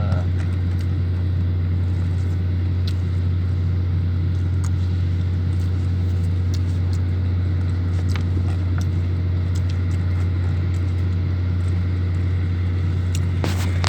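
A steady low hum, unchanging throughout, with a few faint sharp clicks scattered through it.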